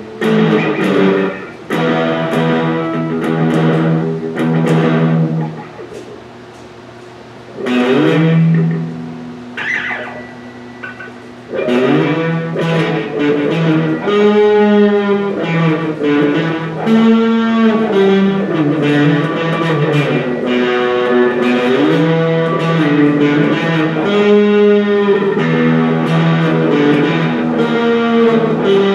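Electric guitar being played: chords and short phrases for the first few seconds, a brief lull, then continuous melodic playing from about twelve seconds in, with notes that bend and waver in pitch.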